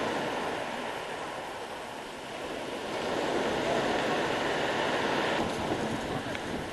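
Sea surf breaking and washing up a shingle beach, easing off and then swelling again with the next wave about three seconds in.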